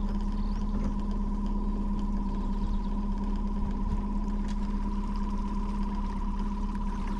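Boat motor running steadily at slow trolling speed: a constant hum with a steady low drone and a higher whine.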